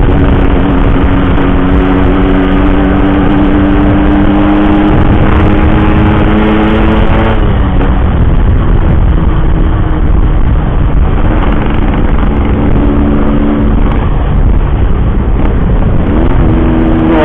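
Yamaha RX-King's two-stroke single-cylinder engine under way, its note climbing slowly for about seven seconds and then dropping sharply as it changes gear. After the drop it holds steady and rises again near the end, over the rumble of wind and road.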